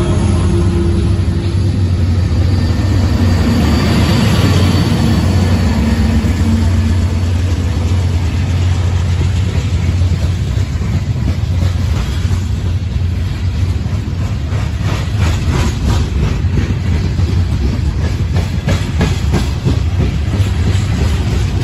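Slow-moving freight train passing close by. Diesel locomotives drone past at first, then open hopper cars roll by. A low rumble runs throughout, and from about halfway through the car wheels click in a steady rhythm over the rail.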